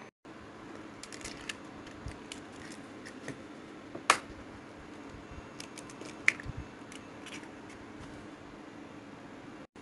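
Eggs being cracked on a glass mixing bowl and dropped in: a run of small shell clicks and taps, with two sharp knocks about four and six seconds in, over a faint steady hum.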